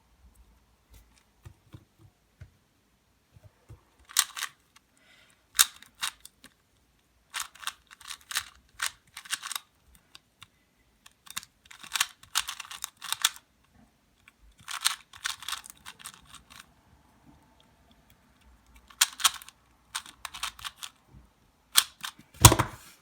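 2x2 Rubik's cube being turned quickly during a timed solve: flurries of sharp plastic clicks from the layers turning, broken by short pauses. A louder knock comes near the end as the solve finishes.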